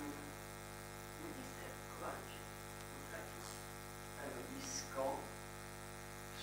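Steady electrical mains hum picked up through the microphone and sound system. A few faint, broken vocal sounds come and go, around two seconds in and again near five seconds.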